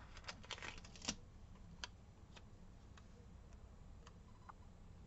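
Faint clicks and paper rustles of stickers being peeled from a sticker sheet and pressed onto a paper planner page. There is a quick cluster of them in the first second, then a few single clicks spaced out.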